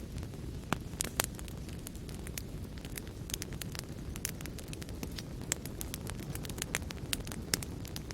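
Wood fire burning in a fireplace: a steady low rumble of flame with many irregular sharp crackles and pops, a few standing out louder.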